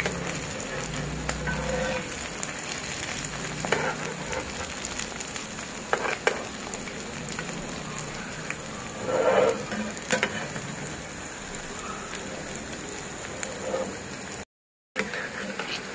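Colocasia-leaf rolls (alu vadi) sizzling steadily as they shallow-fry in hot oil in a nonstick pan. A metal spatula scrapes and taps against the pan now and then as the pieces are turned to fry their second side.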